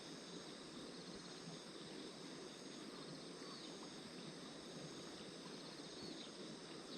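Faint outdoor ambience with insects trilling steadily in the background.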